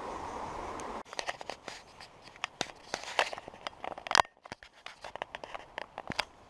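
A steady rushing noise that cuts off abruptly about a second in; then footsteps on a dirt path through weeds, with irregular crunches, rustles and brushing of plants against the body-worn camera, and one sharp crack about four seconds in.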